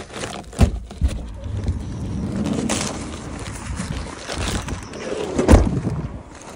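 Rustling of a paper takeaway bag and handling noise as someone steps out of a van and walks on tarmac, with a few dull thumps, the loudest about five and a half seconds in.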